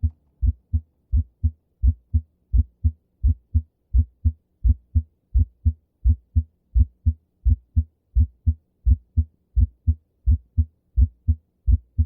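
Auscultation recording of a heartbeat: a steady lub-dub of paired low thumps at about 85 beats a minute. The first heart sound is clearly heard as split into two sounds.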